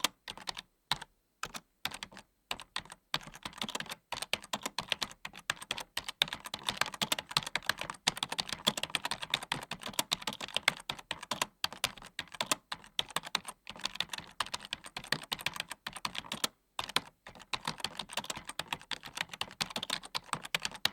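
Typing on a computer keyboard: rapid, irregular key clicks in quick runs with brief pauses, sparser at first and then steady and fast.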